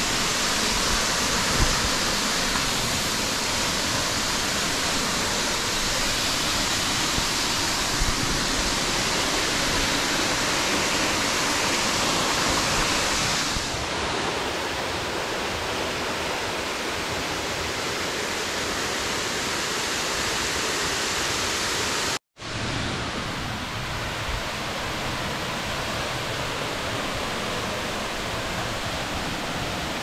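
Rushing river water, a steady even hiss. It turns slightly quieter about halfway through and cuts out for an instant a little after twenty seconds in.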